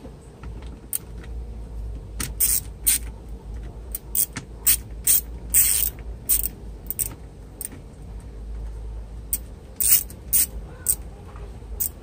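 Small hand ratchet with a T15 Torx bit clicking in irregular bursts as it backs out the clock spring's retaining screws. The clicks start about two seconds in.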